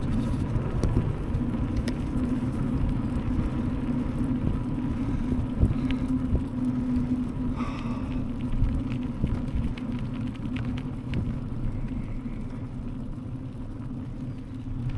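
Fully loaded Sonder Camino gravel bike rolling over a rough track: steady tyre rumble and hum, with scattered rattles and clicks from the bike and its load.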